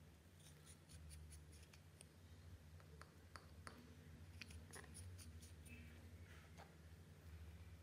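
Very faint handling sounds: scattered light clicks and taps as a liquid lipstick tube is handled and its wand applicator is dabbed onto white slime, over a low steady hum.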